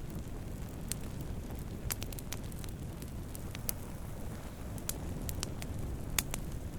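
Wood fire burning with a steady low rumble and irregular sharp crackles and pops from the burning wood, the loudest pop about six seconds in.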